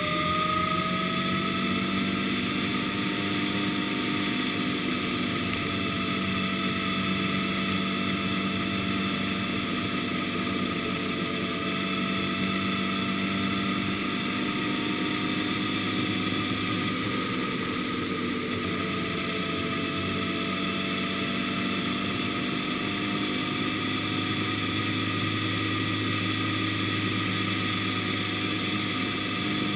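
A road vehicle's engine running steadily while driving at speed, over road and wind noise. Its pitch rises a little in the first seconds and shifts again about two-thirds of the way through.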